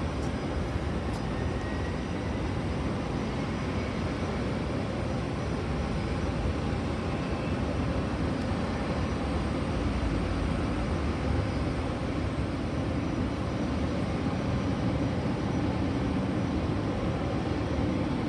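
Steady rumble and hiss of jet airliners running on the apron, with a slow swell about midway and no single event standing out.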